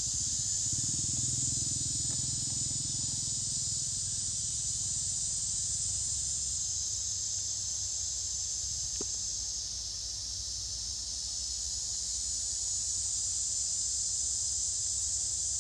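Steady high-pitched drone of insects in the surrounding forest, over a low rumble.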